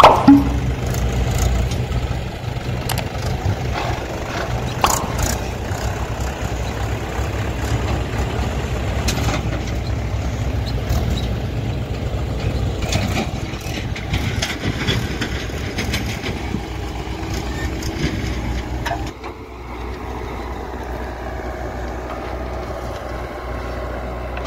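Diesel tractor engine running steadily as the Mahindra tractor pulls its trolley over rough ground, with a short sharp knock right at the start. About two-thirds of the way through the sound changes abruptly to the idling engines of a John Deere tractor and a JCB backhoe.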